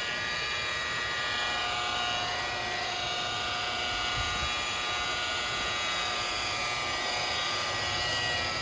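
Cordless Milwaukee M18 Fuel variable-speed polisher running steadily with a foam pad, working polish into a boat's clear vinyl isinglass window; a steady motor whine over a hiss.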